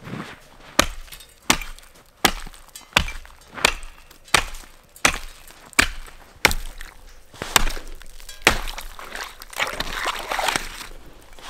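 Hatchet chopping through pond ice: about eleven sharp strikes, roughly one every 0.7 s, then rougher scraping and crunching of broken ice near the end as the hole opens to water.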